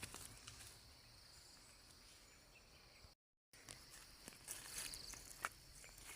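Faint steady chirring of insects in rural farmland, with a pulsed trill near the end and a few soft clicks. The sound drops out completely for a moment about three seconds in.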